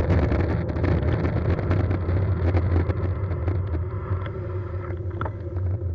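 Wind rushing over a cyclist's camera microphone over a steady low rumble of road and traffic noise, with scattered small clicks and knocks; the rush dies down after about three seconds.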